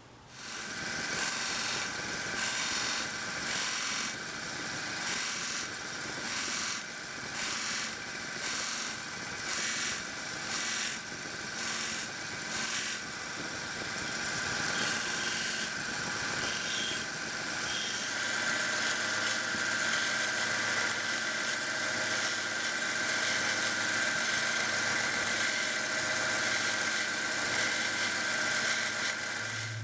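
1x30 belt sander running a coarse conditioning belt, with a steel awl blade held against it. There is a steady motor-and-belt whine. For about the first half, a hissing rasp comes roughly once a second with each pass of the blade, then the rasp becomes steadier and longer.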